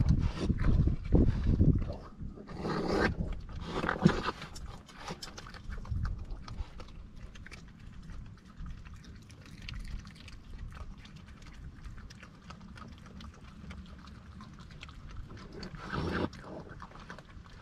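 Raccoons feeding at close range from a glass jar of wafer cookies, with crunching and chewing clicks and a few louder snuffling bursts. In the first couple of seconds their fur brushing the microphone makes a low rubbing rumble.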